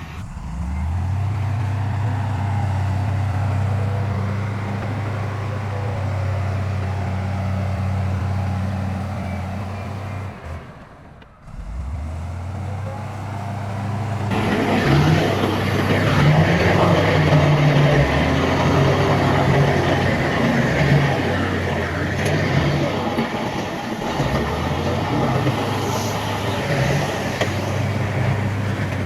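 Heavy diesel earthmoving machinery running: a steady low engine hum that dips away briefly near the middle. In the second half it is louder and rougher, with added rattling noise, as a machine works under load.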